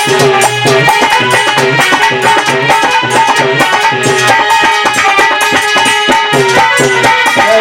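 Background music with a quick, steady drum beat under a held melody.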